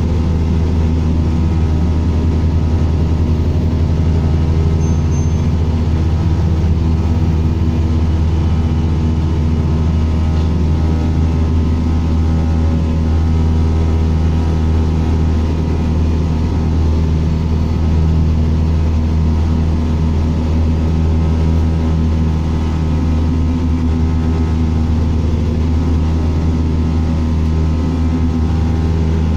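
Bus engine running with a steady low drone and hum, with no marked revving or change in level.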